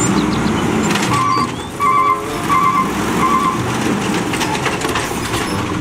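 Natural-gas automated side-loader garbage truck running while its hydraulic arm lifts a wheeled trash cart, with a low rumble throughout. A warning beeper sounds four times about 0.7 s apart, and there is some clatter near the end as the cart is tipped over the hopper.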